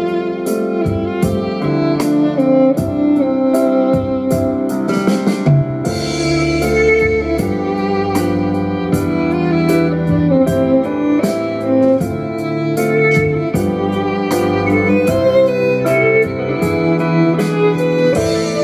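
Live violin and contrabass duo playing a pop-style instrumental, the violin carrying the melody over the bass, with a steady percussive beat.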